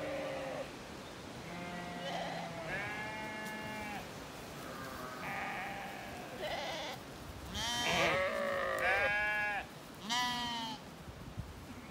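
Zwartbles ewes and lambs bleating, a series of calls about a second long each, several overlapping in the middle of the flock's calling.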